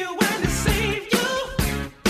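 Pop-rock song with a steady beat and a singing voice, ending in a sudden break just before the two seconds are out.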